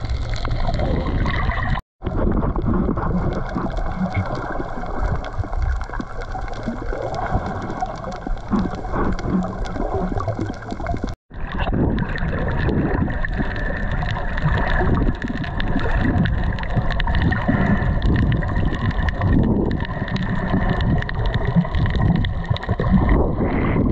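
Water sloshing and gurgling against an action camera at sea, a steady heavy rush with some faint steady tones under it. It cuts out for an instant twice, about two seconds and about eleven seconds in.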